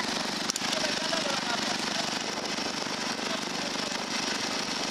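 Riding lawnmower engine running steadily, with a rapid, even pulsing beat. A sharp click comes about half a second in.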